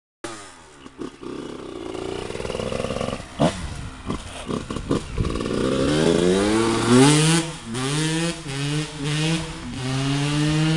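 Honda CRE 125 two-stroke dirt bike engine revving as the bike pulls away and accelerates. From about halfway through, the engine note climbs and drops back several times in a row as the rider shifts up through the gears.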